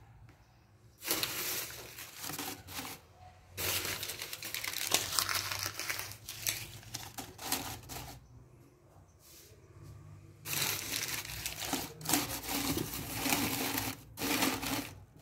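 Crumpled newspaper rustling and crinkling as it is pushed by hand into a plastic bin, in several bouts of a few seconds with short pauses between.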